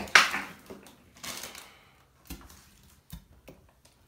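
Plastic salad-dressing bottle being opened and handled: a short noisy rustling burst just at the start, then a few sharp clicks and knocks as the bottle is tipped over the salad bag to pour.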